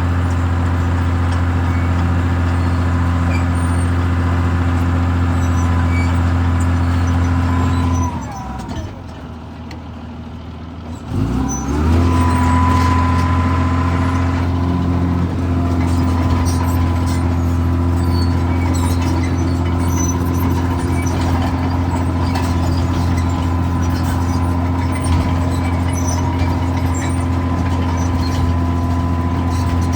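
Cat D4C Series 3 LGP bulldozer's diesel engine running steadily at high throttle, dropping to a lower speed about eight seconds in and revving back up about three seconds later.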